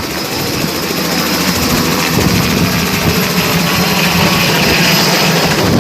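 Helicopter flying overhead, its rotor beating rapidly over a loud, steady engine noise.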